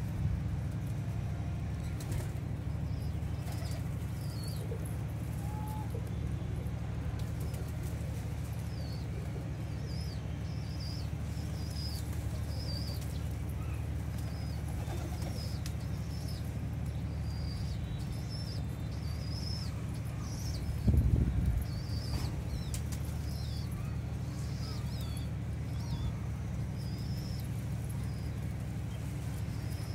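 Flock of domestic pigeons feeding on the ground, with wing flaps and one louder flurry about two-thirds of the way through. Short high chirps repeat through most of it over a steady low hum.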